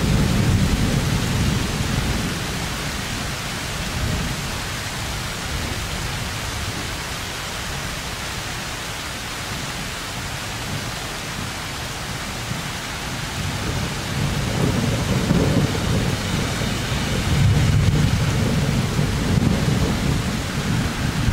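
Rain falling steadily through a thunderstorm. Thunder rumbles at the start and dies away, then a second long roll of thunder builds in the last third and is loudest near the end.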